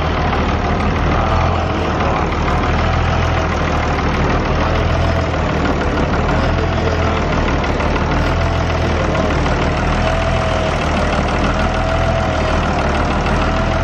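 Farm tractor's diesel engine idling steadily, with a whine above it that wavers slightly in pitch.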